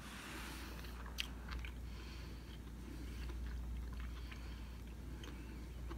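A man chewing a mouthful of cooked mountain lion backstrap, faint and soft, with a single light click about a second in.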